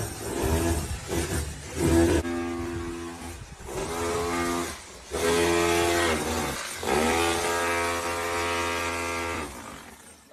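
Electric power drill run in four separate bursts, each spinning up to a steady whine and held for one to two and a half seconds.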